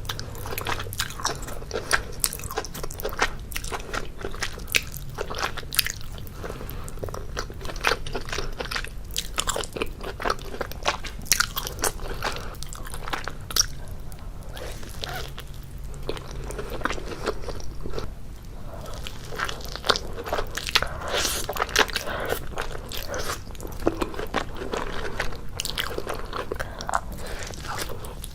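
Biting and chewing of deep-dish pizza, with many irregular crunches of the crust.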